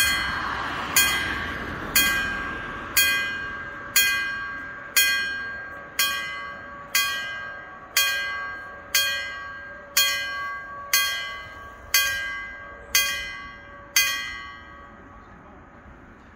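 Level-crossing warning bell striking about once a second, each strike ringing out and fading, as the barriers come down to warn road users of an approaching light-rail train. It stops after about fifteen strikes.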